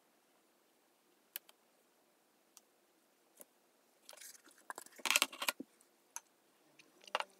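A board holding a taped-down painting being slid and turned around on a tabletop: a scrape about four seconds in, then a brief burst of knocking and rattling, with a few more clicks near the end. Before it come a few faint ticks of a pen on paper.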